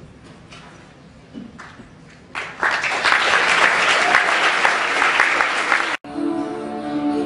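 An audience clapping starts about two and a half seconds in and breaks off abruptly about a second before the end. Music with held notes replaces it.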